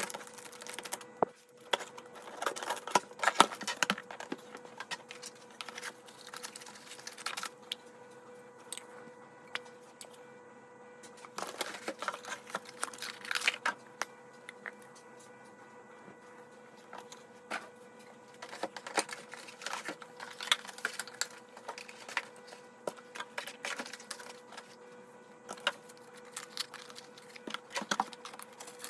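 Candle warmers and their packaging being handled and unpacked: bursts of clicks, taps and rustling, with short pauses between, over a faint steady hum.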